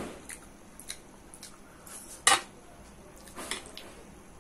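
A scattering of light clicks and clinks against a dinner plate as rice is mixed by hand for eating, with one sharper clink a little over two seconds in.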